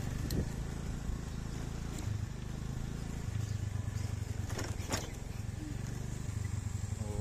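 Motorcycle engine running steadily while riding, a low rumble mixed with wind on the microphone, with a couple of sharp knocks about five seconds in.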